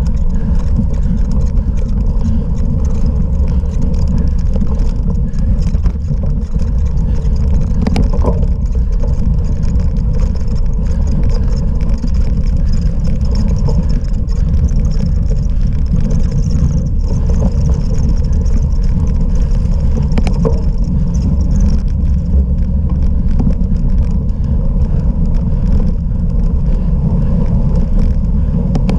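Steady, loud rumble of wind and rough ground on a moving microphone while a cyclocross bike is ridden off-road, with a few brief clicks and rattles.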